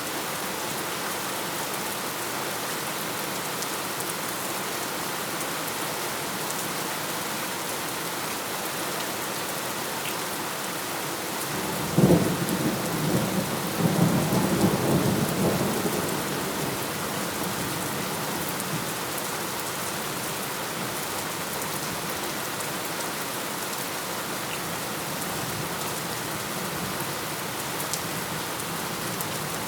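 Steady heavy rain, with a clap of thunder breaking sharply about twelve seconds in and rumbling for about five seconds before fading back into the rain.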